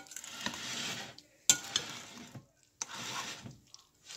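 Metal spoon stirring baked beans in sauce in a glass bowl, in three strokes, with a sharp clink of the spoon against the glass about one and a half seconds in.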